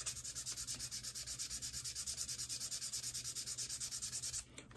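Sandpaper rubbed in quick, even, light strokes against the cane tube of a bassoon reed blank, about seven strokes a second; the strokes stop shortly before the end. The sanding smooths out a small hole in the side of the tube that could otherwise leak.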